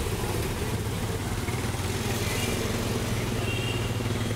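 Car engine running in slow, stop-and-go city traffic, heard from inside the car's cabin as a steady low hum, with motorcycles and other traffic close around.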